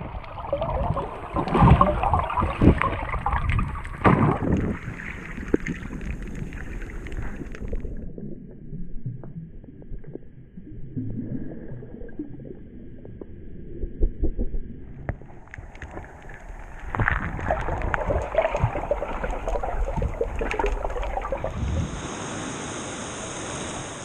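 Water splashing and gurgling around a waterproof-housed action camera worn by a swimmer snorkelling at and just under the surface. It is brighter and splashier at first and again from about fifteen seconds in, and duller and more muffled in between, with bubbles.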